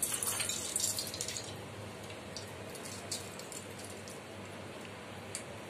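Lemon squeezed in a metal hand-held lemon squeezer: juice squishing and dripping into a small steel bowl for about the first second and a half, then a few faint clicks.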